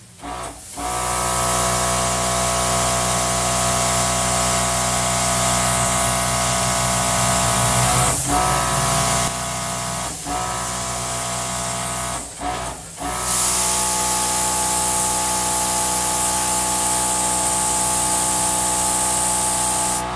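Compressed-air blow gun hissing steadily with a whistling tone. It starts about a second in and drops out briefly three times midway as the trigger is let off and pressed again.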